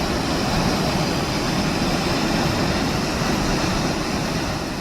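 Waterfall on the McCloud River, falling water making a steady, even rushing noise.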